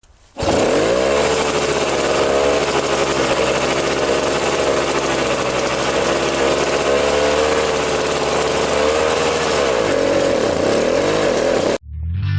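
DT-75 crawler bulldozer's engine running loud, its pitch wavering up and down, with heavy mechanical noise over it; it cuts off suddenly near the end.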